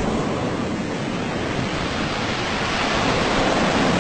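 Heavy storm sea: a steady, loud rush of breaking waves and wind.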